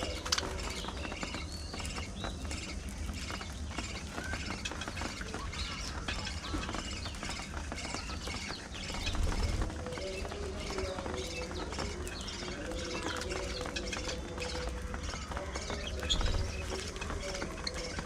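A colony of budgerigars chattering: many short overlapping chirps and warbles, with a lower wavering note under them. A steady low rumble runs beneath and swells twice, about halfway through and near the end.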